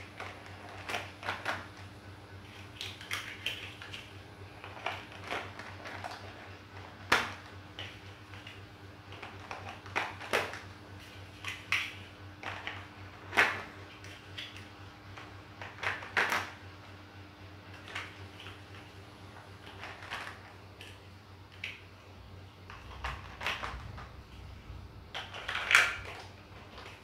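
Large plastic toy building blocks clicking as they are pressed together and clattering as loose ones are picked up and set down on a hard floor: irregular small clicks with a few louder knocks. A faint steady hum runs underneath.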